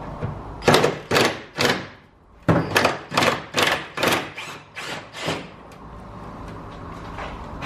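Ratchet and socket working the corroded 12 mm bolts of a Nissan 350Z's rear lower W brace: a run of sharp strokes, about three a second, with a short pause about two seconds in.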